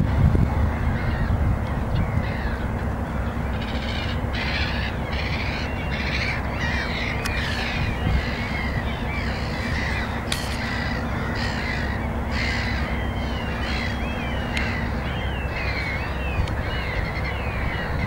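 A flock of gulls calling: many short overlapping calls that rise and fall in pitch, growing denser a few seconds in, over a steady low rumble.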